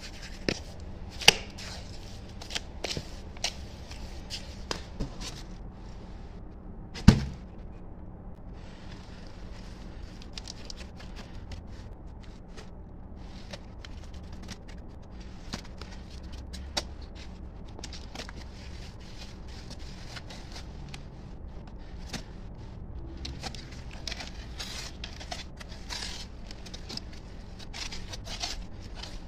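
A trowel scraping and clacking against the side of a basin of wet cement mortar, with one loud knock about seven seconds in. Then softer scrapes and pats as mortar is packed into a mould, growing busier near the end, over a steady low hum.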